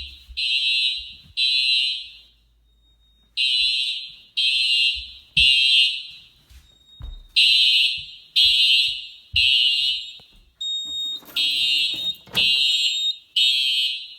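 Home fire alarm system sounders in alarm after a detector test, beeping a high-pitched temporal-three evacuation pattern: three beeps, a pause, repeated four times.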